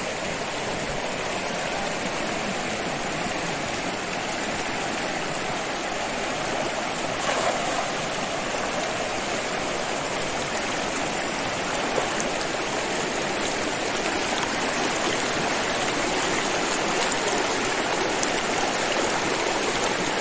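Shallow, fast-flowing muddy river rushing steadily over stones.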